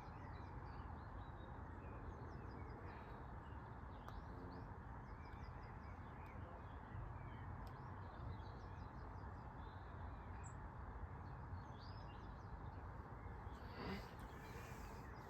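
Faint birds chirping in short repeated phrases over a steady low background noise.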